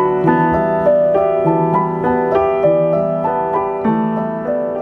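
Background piano music: gentle single notes and chords at an even pace, slowly getting quieter.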